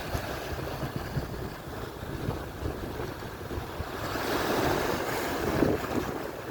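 Atlantic surf breaking and washing on the shore, one wave swelling louder about four seconds in and easing off near the end, with wind buffeting the microphone.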